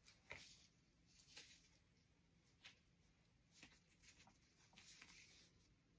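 Near silence: room tone with a few faint, brief clicks and rustles of small hand handling.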